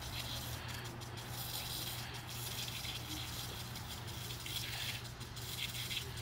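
Lawn sprinkler spraying water: a steady hiss of spray with some rattling, over a steady low hum.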